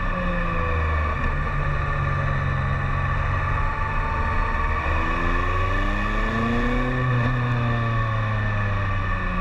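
BMW K1300S inline-four engine pulling the motorcycle along. The revs climb from about five seconds in, peak around seven seconds, then fall away again.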